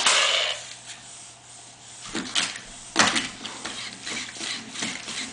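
WowWee Roboreptile robot toy moving, its motors and plastic legs clattering and clicking, with several sharp noisy bursts, the loudest at the start and about three seconds in.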